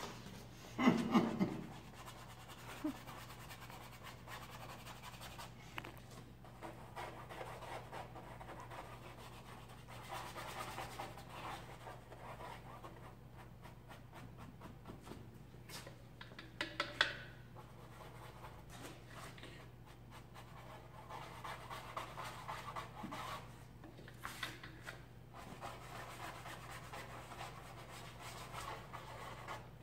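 Faint scratchy rubbing of a paintbrush dragged across a canvas, coming in stretches, over a steady low hum. A short louder knock about a second in.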